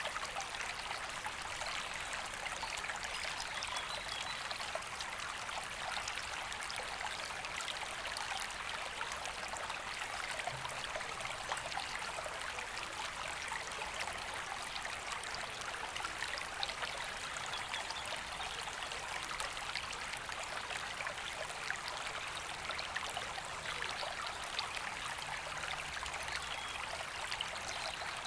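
River water running steadily over its bed: a continuous, even rushing flow.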